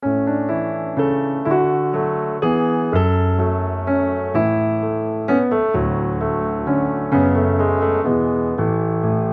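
Background piano music: slow, gentle notes and chords struck about once or twice a second, each ringing and fading before the next.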